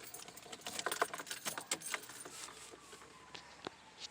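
A quick run of small clicks and light rattles, busiest in the first two seconds, like keys jangling or something small being handled. In the second half a faint tone glides slowly down in pitch.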